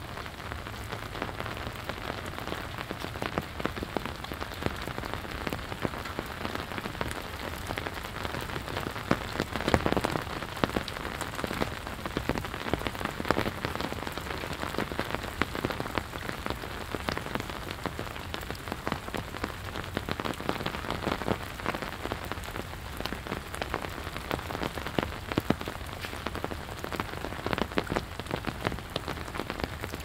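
Steady rain falling, a dense even hiss dotted with many sharp ticks of individual drops landing close by, with a brief louder spell of drops about ten seconds in.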